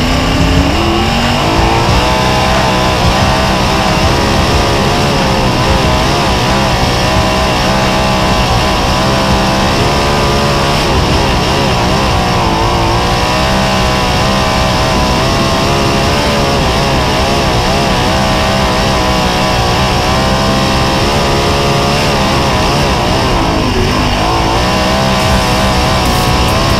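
Sprint car's 410 V8 engine at racing speed, picked up by a microphone on the car itself. The engine pitch climbs in the first second, then rises and falls again and again as the throttle is worked.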